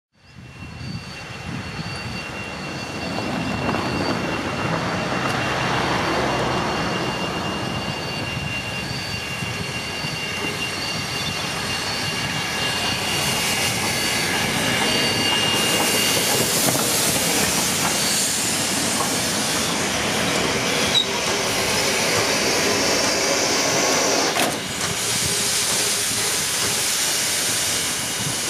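Double-headed narrow-gauge steam train rolling past at slow speed: steady rumble and clatter of wheels on rail, with steam hissing from the locomotives. It swells up out of silence over the first few seconds, and there is one sharp click about two-thirds of the way through.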